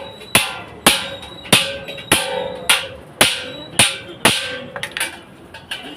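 Blacksmith's hammer striking iron on an anvil while forging a rice-washing ring: eight ringing blows at a steady rhythm of about two a second, stopping near the end.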